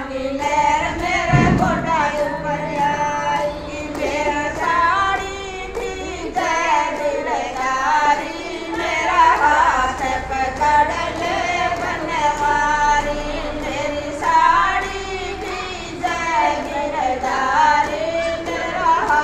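Gujari bhajan, a Rajasthani devotional folk song, sung with musical accompaniment, with a low thump about a second and a half in.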